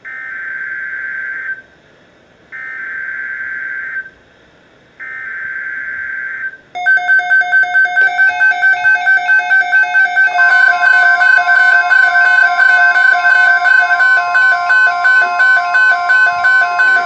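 Emergency Alert System SAME header data bursts, sent three times with short gaps, followed by a rapidly beeping electronic alert tone. About three seconds into the beeping, a steady tone joins under it.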